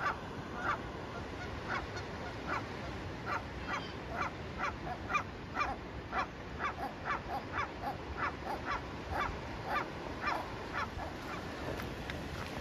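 Canada geese honking, a long run of short repeated calls about two a second over steady background noise, thinning out near the end.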